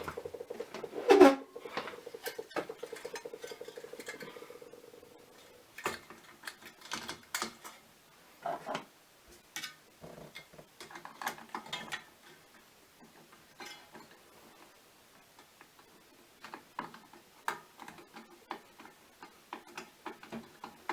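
Scattered clicks, taps and small knocks of a screwdriver working the Phillips mounting screws of a CPU cooler bracket on a motherboard, with a sharp knock about a second in. A steady buzz with fast ticking runs through the first four seconds.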